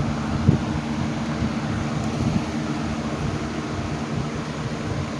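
Two vintage box fans, a 1980s Patton and a 1960s Frigidaire, running together on high speed: a steady rush of air over a low motor hum.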